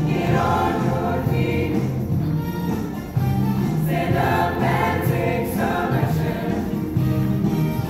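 A choir singing, with music continuing throughout.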